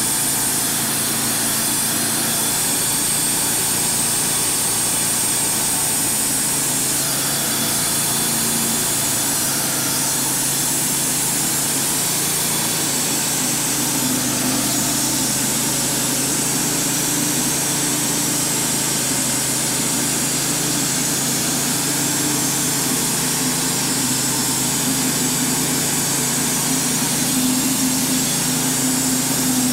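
Wood-Mizer LT35HD portable band sawmill running steadily under its engine while the band blade saws through a walnut slab. The engine note steps up slightly about halfway through.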